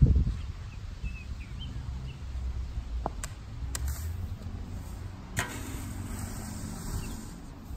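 Flat shovel working top-dressing soil: a thump at the start as it scoops from the cart, then a shovelful flung onto the lawn and scraped across the grass, over a steady low rumble.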